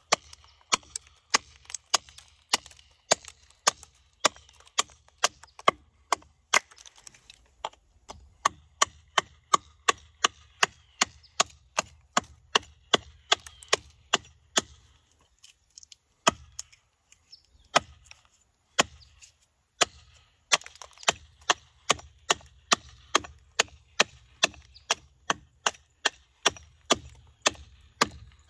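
Carving axe chopping into a walnut spoon blank: quick, regular sharp chops, about two to three a second. They break off briefly about halfway through, come more slowly for a few seconds, then pick up the quick rhythm again.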